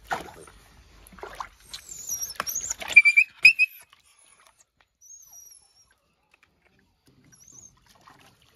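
Water splashing in a plastic bathtub as a dog struggles during its bath. About two to three and a half seconds in come several short, high-pitched whines from the dog, the loudest sounds here: it is frightened and resisting the wash. A few faint high squeaks follow.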